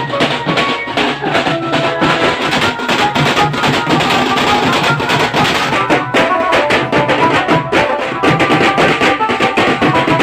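Street drum band playing a fast, dense beat on snare and bass drums slung from the players' shoulders, with a melody playing over it.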